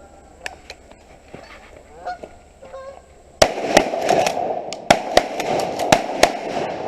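Geese honking, a few calls at first, then from about three and a half seconds in a flurry of shotgun shots in quick succession over loud, dense honking of the flock.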